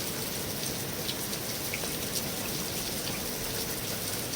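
Steady rain on a metal roof: an even hiss with a constant patter of small drop ticks.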